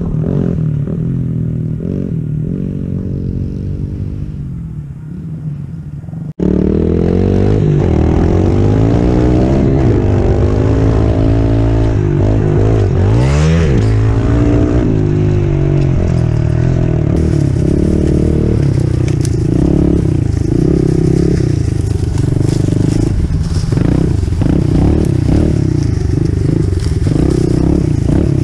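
A pit bike's engine fading as it rides away, then, after a sudden cut, a Yamaha TTR110's small four-stroke single heard up close from the rider, its pitch rising and falling with the throttle. About 13 seconds in the revs drop sharply and climb back.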